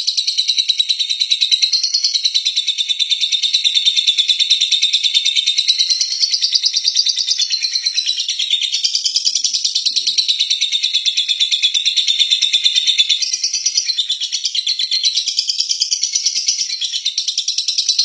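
Lovebird singing its long 'ngekek' chatter: a rapid, nearly unbroken stream of high chirps, pausing only briefly a few times.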